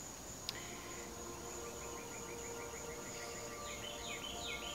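Insects chirring: a steady high buzz with runs of rapid repeated chirps. A single light click comes about half a second in.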